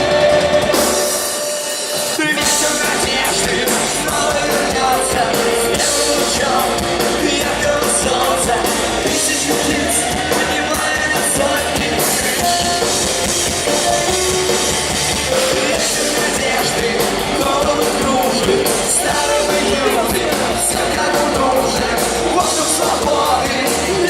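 Rock band playing live, drum kit and amplified instruments at full volume, with the low end dropping out briefly about two seconds in before the full band comes back in.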